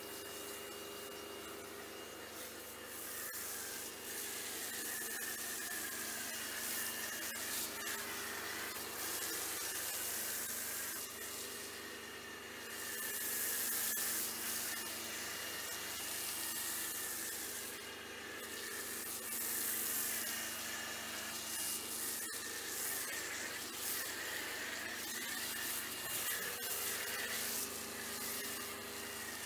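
Pressure washer spraying snow foam through a foam lance: a steady hiss of spray over a constant whine from the machine, louder at times as the lance sweeps across the panels.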